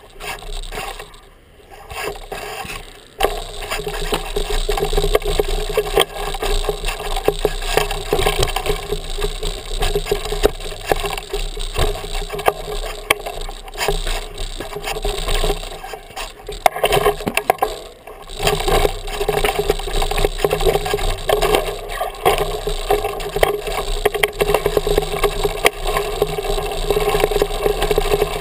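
Mountain bike ridden over rough limestone rock: the tyres scrape and crunch, and the bike and its handlebar-mounted camera rattle and knock with every bump.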